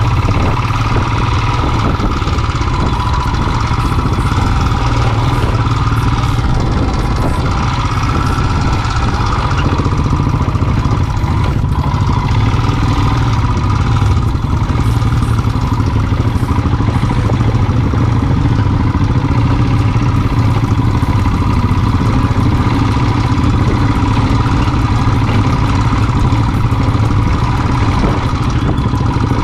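Single-cylinder Royal Enfield motorcycle engine running steadily at a constant pace while riding an off-road trail.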